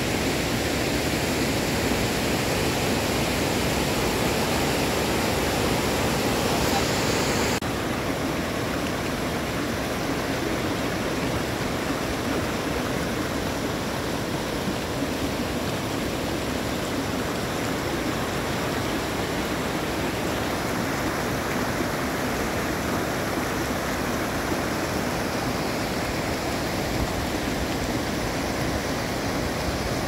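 Steady rush of water falling at Eagle Falls. About seven seconds in, the sound abruptly turns a little quieter and duller.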